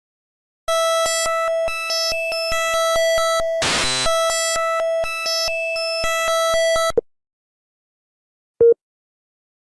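Synthesized emergency alert alarm: a harsh, steady buzzing tone starts just under a second in, broken by rapid clicks and a brief burst of noise midway, and cuts off abruptly about seven seconds in. A single short beep follows near the end.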